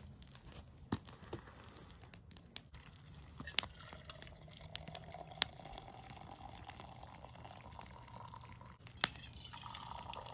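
Hot tea poured from a blackened boil-up can into an insulated mug: a faint pouring trickle whose pitch slowly rises as the mug fills, breaks off, then starts again higher near the end. A few light clicks and knocks come in between.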